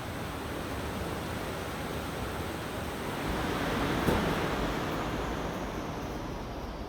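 Dual drum sander running: a steady rushing noise that swells about halfway through, with one sharp tick at the loudest point.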